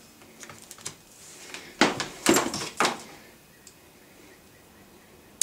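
Sharp plastic clicks and knocks from plugging in a mains power plug and handling a small bench polisher's switch, three loudest in quick succession near the middle, then quiet. Right at the end the polisher's electric motor switches on with a sudden steady hum.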